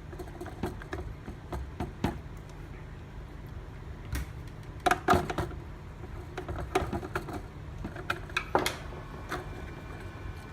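Scattered small clicks and knocks of hands working a pressure tube onto the port of a flow switch, with a louder cluster about halfway through and another near the end, over a steady low hum.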